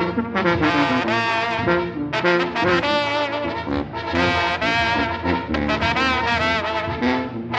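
Brass band music: trumpets and trombones playing a melody in phrases with short breaks between them.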